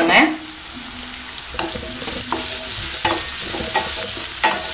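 Chopped gooseberries (amla) frying in sesame oil in a stainless steel kadai, with spice powders just added. From about one and a half seconds in, a wooden spatula stirs the mixture with a series of short scrapes against the pan.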